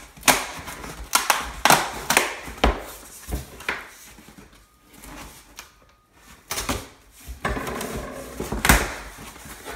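Cardboard shipping box being handled and slit open with a knife: a run of sharp taps, knocks and scrapes on cardboard and packing tape, then a longer stretch of scraping and rustling as the flaps are pulled open, with a loud knock near the end.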